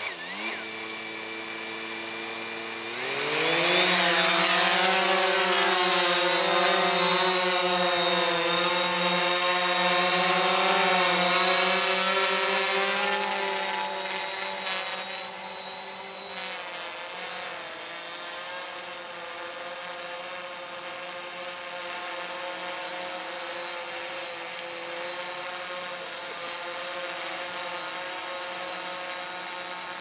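DJI Phantom 4 quadcopter's propellers spinning at idle on the ground, then rising in pitch and growing loud as it lifts off about three seconds in, carrying a water bottle. The buzz eases off somewhat as the drone climbs and settles into a steady hover.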